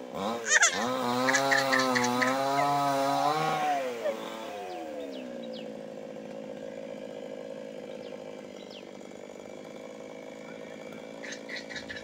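Chainsaw running at high revs, its pitch wavering under load as it cuts. About four seconds in the throttle is let off, and the pitch slides down to a steady idle.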